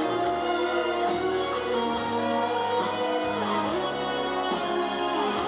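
Instrumental interlude of a slow trot ballad: steady accompaniment under a melody line that slides between notes a few times.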